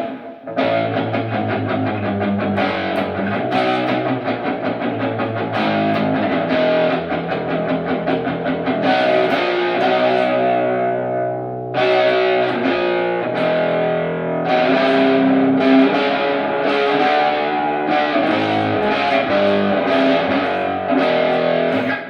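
Electric guitar played with a distorted tone through the small built-in speaker of a Positive Grid Spark Go portable amp: picked notes and strummed chords. About nine seconds in, a chord is left to ring and fade for a few seconds before the playing starts again.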